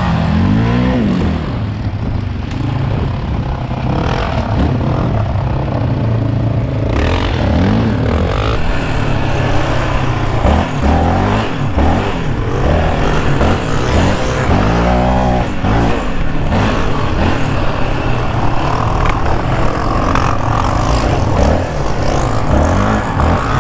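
Yamaha Raptor 700R's single-cylinder engine with an aftermarket Monster exhaust, revving up and falling back again and again as the quad is ridden, with other quads' engines behind it.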